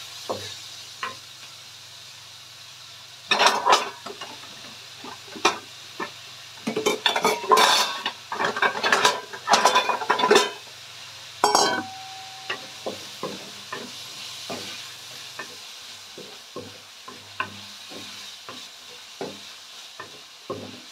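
Wooden spatula scraping and stirring chopped onions in hot oil in a metal wok, over a steady sizzle. The stirring comes in bursts of quick strokes in the first half, then turns to occasional light scrapes.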